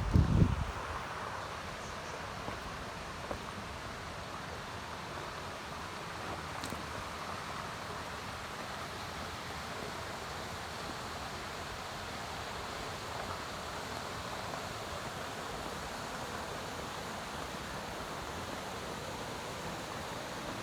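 Steady rushing of mountain water, a waterfall or fast stream, as an even hiss-like roar. A brief low thump on the microphone comes right at the start.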